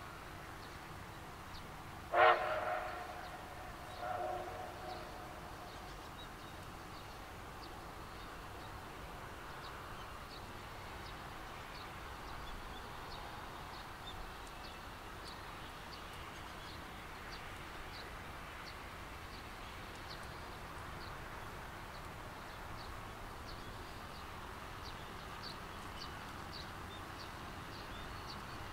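A distant steam locomotive sounds one sharp whistle blast about two seconds in, and a fainter one follows about two seconds later. After that the train runs steadily in the distance.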